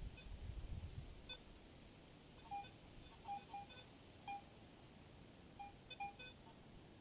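Garrett AT Pro metal detector giving about half a dozen short, faint, irregularly spaced beeps as its coil is swept over the ground. A low rumble is heard in the first second.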